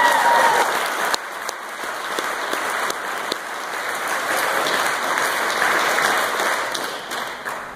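Audience applauding, with a brief whoop of cheering at the start; the clapping dies away near the end.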